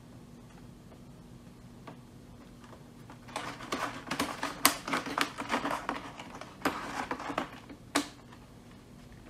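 A cat nosing and mouthing at durian in a tissue-lined plastic tray: a quick, irregular run of small clicks and crinkles starting about three seconds in and stopping about eight seconds in, with a few sharper clicks among them.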